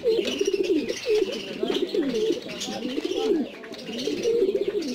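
Black Siraji (Lahore) pigeons cooing almost without pause, a low rolling warble that dips briefly about three and a half seconds in.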